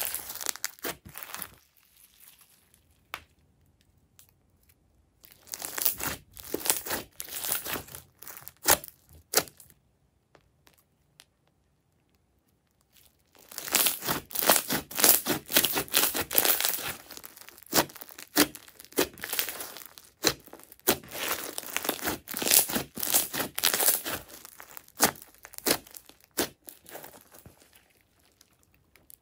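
Thick glossy slime full of foam beads being stretched, folded and squeezed by hand, with sticky crackling, squishing and tearing sounds in uneven bursts. There is a pause of a few seconds about ten seconds in, then a long, denser run of crackling and squishing as it is kneaded.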